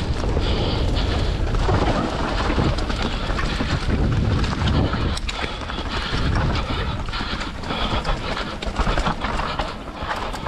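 Wind buffeting the microphone over the noise of mountain bike tyres rolling along a dirt forest trail, with frequent small clicks and rattles as the bike runs over bumps.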